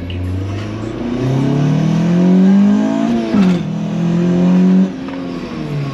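Honda Civic four-cylinder VTEC engine with a loud 'fart cannon' aftermarket exhaust, pulling hard under full throttle. The pitch climbs for about two seconds, drops sharply at a quick upshift a little past three seconds, and rises again until the driver lifts off near the five-second mark.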